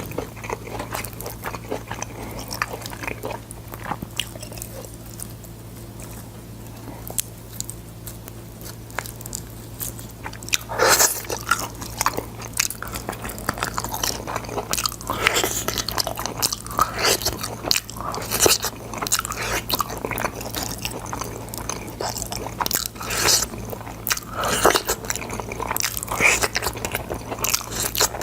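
Close-miked eating of boiled sword beans: chewing with repeated crisp crunching bites. Softer for about the first ten seconds, then louder, more frequent crunches. A steady low hum runs underneath.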